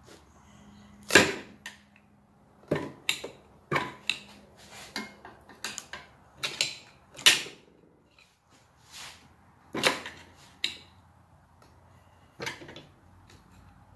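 Screwdriver prying and knocking at a water pump's metal housing, which is stuck on with silicone: about a dozen sharp, irregular clicks and clanks, the loudest about a second in.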